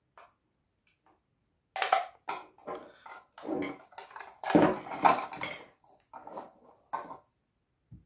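US-52 motor speed controller housing being prised open with a screwdriver and its cover pulled off: a run of clicks, scrapes and clatter starting about two seconds in, loudest about halfway through.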